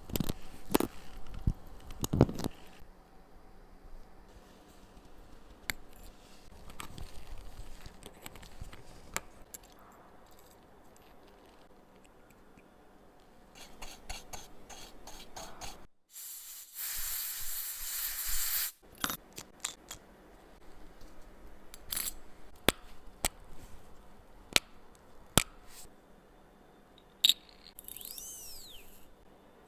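Small metal tools clicking, tapping and scraping on the parts of a watch under restoration, with a hiss lasting about two seconds roughly halfway through.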